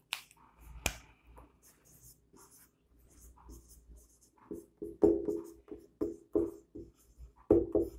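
Marker pen writing on a whiteboard: a run of short scratchy strokes, turning into louder pitched squeaks in quick bursts during the second half.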